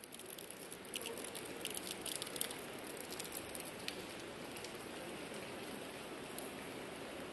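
Steady rain falling, with a scatter of sharper drop taps in the first few seconds.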